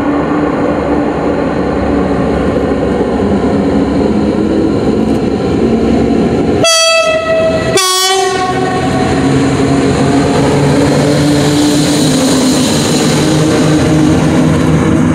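An EU07 electric locomotive hauling a passenger train runs in past the platform, its motors and wheels growing louder as it draws alongside. About seven seconds in it sounds two short horn blasts a second apart, the second lower in pitch.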